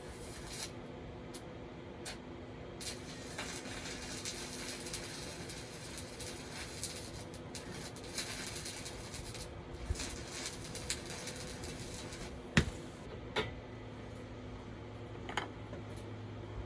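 Handling noises: scattered light clicks and knocks with rustling and scraping, and one sharper knock near the end. A low steady hum comes in soon after that knock.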